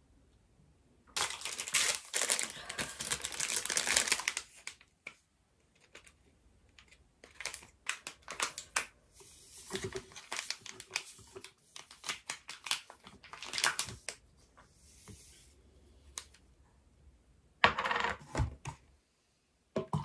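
Close-up handling noises: spells of crinkling and rustling mixed with sharp light clicks and clinks. There are three main bursts, about a second in, through the middle, and near the end.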